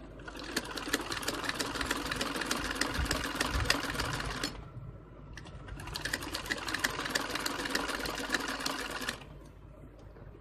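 Singer sewing machine stitching a curved neckline seam in two runs of rapid, even needle ticking, each about four seconds long with a short pause between. It then stops about a second before the end.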